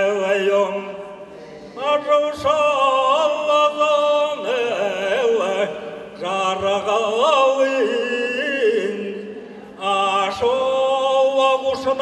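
An elderly man singing a slow, unaccompanied Buryat song into a microphone: long drawn-out vowels with wavering, ornamented pitch, in phrases of a few seconds separated by short pauses for breath.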